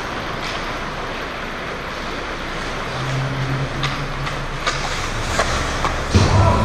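Ice hockey rink game sounds: skate blades scraping the ice and hockey sticks clacking in a handful of sharp knocks over a steady arena hum, with a sudden louder burst near the end as the play reaches the net.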